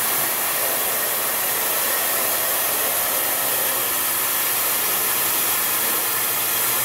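Flash Laser FL-1390 laser cutting machine running while it cuts sponge foam: a steady, even hiss of air from its air assist and fume extraction, with no breaks or rhythm.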